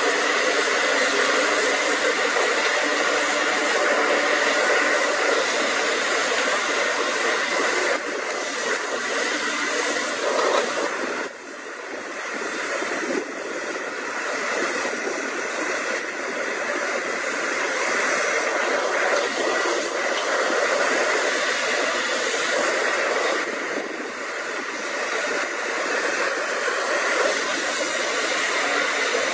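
Caterpillar 320CL hydraulic excavator running steadily under load while digging: engine and hydraulics making a dense, continuous drone. The level dips briefly about eleven seconds in, then comes back.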